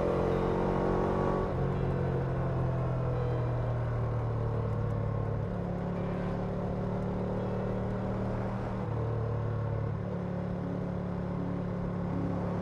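Ambient background music with low sustained notes that change every few seconds, mixed over a motorcycle engine that falls in pitch about a second in.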